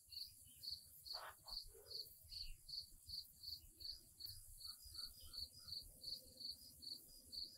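Faint, steady chirping of crickets, an even high pulse about two to three times a second.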